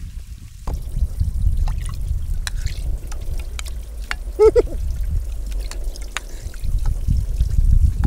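Water pouring and trickling steadily, with scattered small splashes and clicks. About halfway through there is a brief, high, wavering vocal call.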